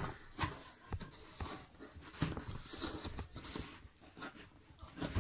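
Corrugated cardboard box being pried open by hand: fingers scraping and rubbing at the tuck-in flap, in a string of irregular short scrapes and rustles.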